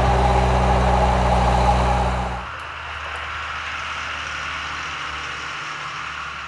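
An engine running steadily with a low hum, which cuts off about two and a half seconds in, leaving a quieter steady hiss.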